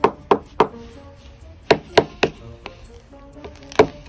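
A frozen-solid banana knocked hard against a snow-covered hard surface, giving sharp wood-like knocks. There are three quick knocks, three more about a second and a half later, and one near the end, over steady background music.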